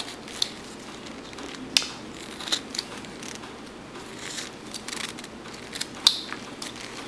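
A carving knife whittling a wooden dog figure: irregular short clicks and scrapes as the blade slices chips from the wood. Two sharper snaps stand out, one a little under two seconds in and one near the end.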